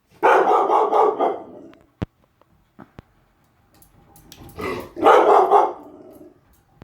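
Dog barking at a ceiling fan, in two bouts of about a second and a half each: one near the start and one about five seconds in. A few short sharp clicks fall between them.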